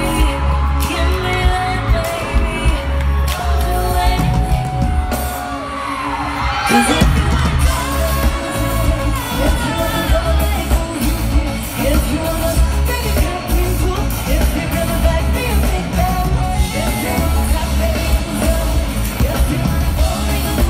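Live pop music: a female vocal group singing over an amplified backing track with a heavy bass beat, heard from among the concert audience.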